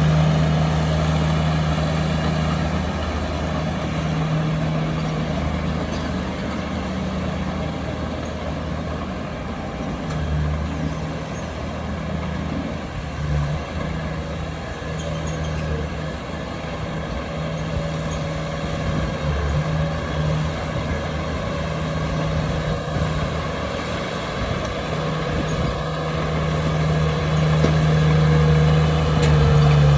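Diesel engine of heavy earthmoving machinery running steadily, quieter through the middle and louder again near the end.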